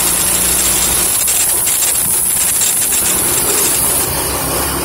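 A motor vehicle driving along a road, its engine humming steadily under loud wind and road noise, with a few faint rattles.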